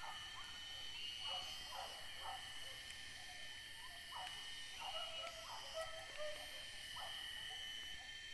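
Steady high-pitched drone of forest insects, with repeated faint, short yelps of hunting dogs in the distance, coming irregularly throughout.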